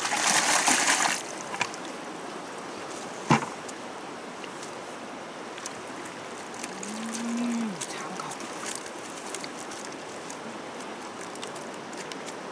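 Water and fish poured from a plastic bucket into a woven basket net, splashing loudly for about a second. A sharp knock follows a couple of seconds later, and a single low moo about seven seconds in.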